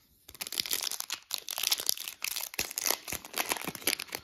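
Foil wrapper of a Pokémon trading-card booster pack crinkling and tearing as it is pulled open by hand: a dense, uneven run of crackles that starts a moment in.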